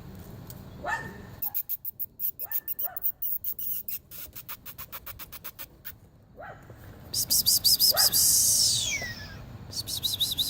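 A dog barking every second or two, each bark short and falling in pitch, the neighbor's dog that keeps barking. Over it, birds chirp in fast trills, loudest about eight seconds in.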